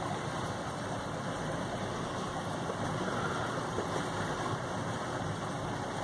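Steady rushing noise aboard a Silverton convertible motor yacht under way: water washing along the hull mixed with the drone of its engines.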